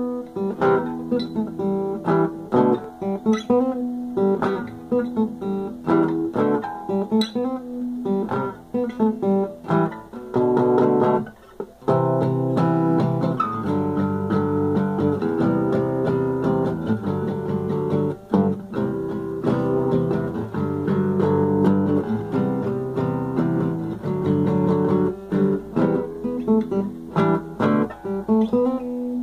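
Dreadnought acoustic guitar played solo: single picked notes for the first eleven seconds or so, a brief drop near the middle, then fuller strummed chords.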